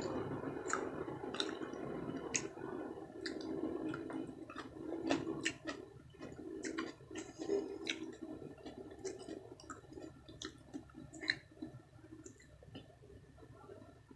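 A person chewing sushi with wet, squishy mouth sounds and many small irregular clicks.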